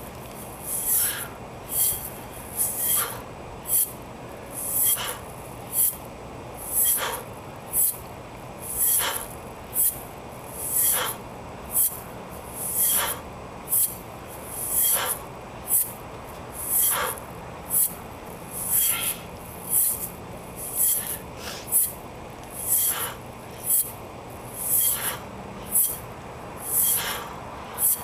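A mace swung round behind the head in repeated circles, swishing through the air: a regular whoosh about once a second, with a stronger one every two seconds. A faint steady low hum runs underneath.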